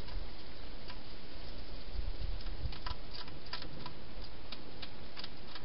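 Wild hedgehog feeding at a bowl inside a plastic feeding box: a quick, irregular run of small sharp clicks and smacks starting about halfway through, over a steady hiss.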